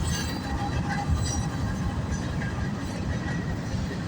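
Freight train cars rolling past, a steady low rumble of steel wheels on rail with a few faint, short high squeaks.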